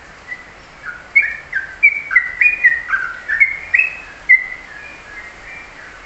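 Caged bulbul singing a run of short, clear whistled notes that jump up and down in pitch, loudest through the middle of the phrase and tailing off near the end.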